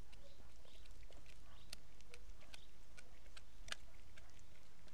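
Borzoi gnawing a bone: irregular sharp cracks and crunches of teeth on bone, a few standing out louder.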